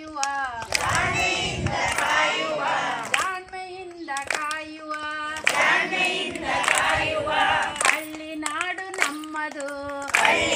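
Group of voices singing a song, a single voice's held lines alternating with the whole group singing together.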